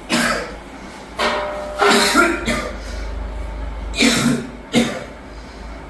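A person coughing, several sudden coughs in bouts over a few seconds.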